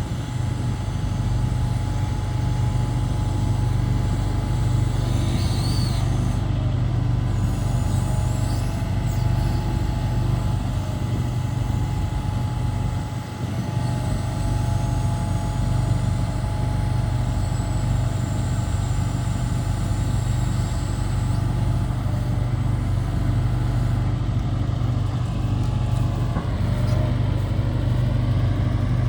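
Hitachi ZX170W-5B wheeled excavator's diesel engine running steadily, with a deep steady hum and thin whining tones above it that shift in pitch a few times, dipping briefly about halfway through.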